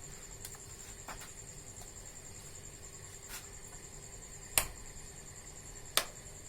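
A few short sharp clicks, the two loudest near the end, over a faint steady high-pitched whine.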